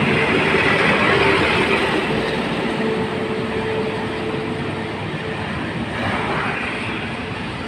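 Road traffic led by heavy trucks, a Kenworth and a dump truck, driving away up the road: steady engine and tyre noise with a constant hum, slowly fading. A car passes close about six seconds in.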